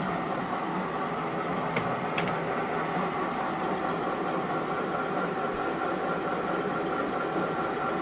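Mondial Gallic 16 metal lathe running, its motor and geared headstock giving a steady mechanical hum, while the carriage travels along the bed under lead-screw power feed. Two faint clicks about two seconds in.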